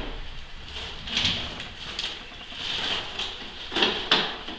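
Handling noise from a mini split's plastic indoor wall unit being lifted up against the wall toward its mounting bracket: rubbing and scraping, with two sharper knocks close together near the end.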